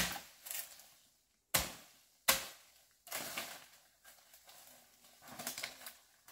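Three sharp knocks, the second about a second and a half after the first and the third under a second later, followed by a few seconds of irregular rustling and crunching.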